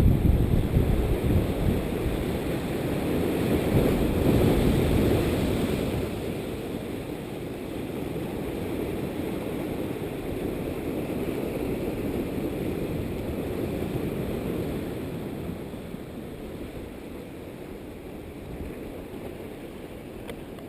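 Strong wind buffeting the camera's microphone, a steady low rush that swells about four seconds in and eases toward the end.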